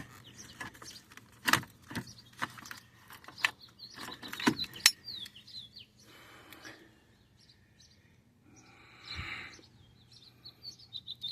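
Scattered clicks and knocks of hands and tools working plastic steering-column parts loose, with two short scraping rustles later on. A bird chirps in the background, in quick runs of short falling notes.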